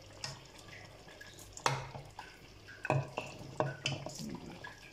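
Slotted metal spatula scraping and clinking against a steel cooking pot and a ceramic plate while lifting cooked chicken pieces out of thick lentils: several sharp knocks, the loudest about a second and a half in.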